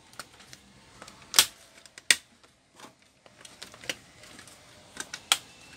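Sharp, irregular plastic clicks as the snap clips of a laptop's LCD front bezel are pressed back into place, the loudest about one and a half and two seconds in and again near the end.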